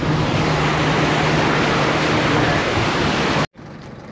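Land Rover driving off-road: the engine's steady hum under loud wind and road noise, which cuts off suddenly about three and a half seconds in.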